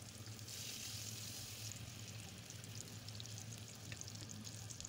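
Faint sizzling of tomato paste and oil sautéing in a small pan, stronger for the first couple of seconds and then thinning to light crackles, over a steady low hum.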